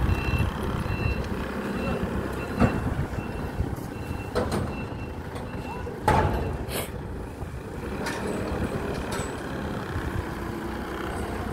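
A heavy vehicle's reversing alarm beeps about twice a second over a steady diesel engine rumble, and stops about halfway through. Several sharp metallic clanks ring out, the loudest near the middle.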